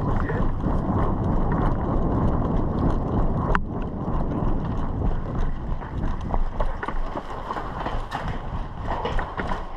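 Running footsteps with gear and the head-mounted camera jostling, a fast rhythm of thuds and rustling. One sharp click sounds about three and a half seconds in.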